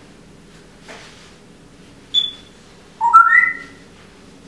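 African grey parrot whistling: a short high whistle about two seconds in, then a louder whistle that climbs upward in pitch in steps over less than a second.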